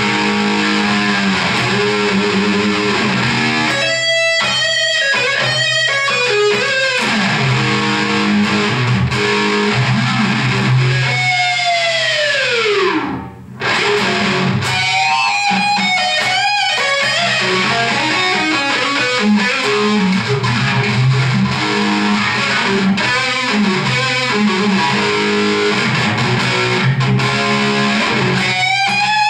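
Distorted electric guitar played through a Line 6 combo amp, hard-rock riffing with sustained low notes, and one long sliding fall in pitch about twelve seconds in.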